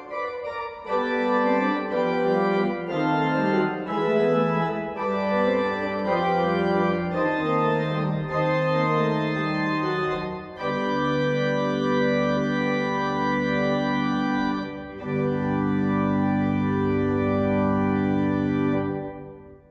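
Church organ playing the closing postlude in full chords: moving chords for the first half, then long held chords over deep pedal bass, ending on a final sustained chord that dies away near the end.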